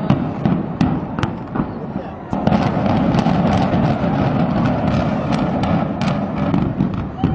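A rapid, irregular series of sharp bangs from explosive demolition charges firing in sequence, over a dense rumbling din with voices mixed in. The din gets louder a little over two seconds in.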